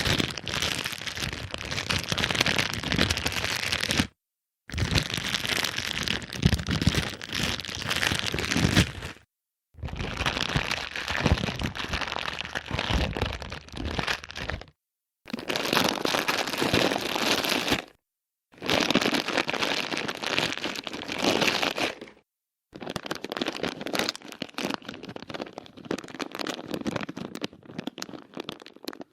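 A string of six separate sound effects, each a few seconds of dense crackling noise, cut apart by short silences.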